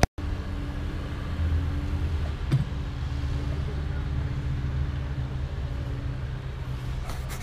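Heavy equipment engine running steadily at a constant pitch, with a single short knock about two and a half seconds in.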